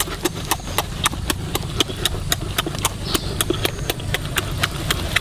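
Loud close-up chewing and lip smacking as a man eats chicken with his hands: a quick, uneven run of wet clicks, several a second.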